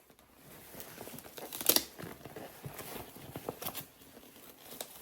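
Straps being adjusted on an inflatable vinyl toy shield: rustling and scraping of strap and vinyl, with a few small clicks and one louder rasp about a second and a half in.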